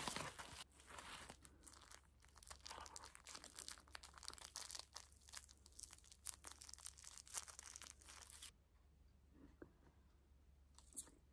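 Faint rustling and crinkling handling noise, dense irregular crackles that stop about eight and a half seconds in, followed by near silence and a single click near the end.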